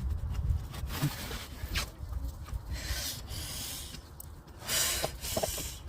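Irregular rubbing and scraping as hands work the turbo's return pipe and fittings into position, with the loudest scrapes about three and five seconds in.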